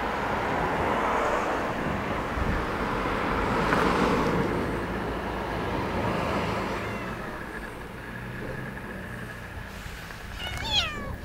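A cat's fur and face rubbing against the camera, heard as a rustling scrape on the microphone that swells to its loudest about four seconds in and then fades; a short cat meow near the end.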